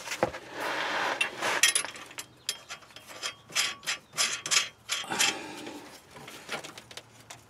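Steel bolts and a nut clicking and scraping against a rusty exhaust pipe flange while a bolt is worked through and a nut is started on its thread by hand: a run of short clicks and rasping scrapes.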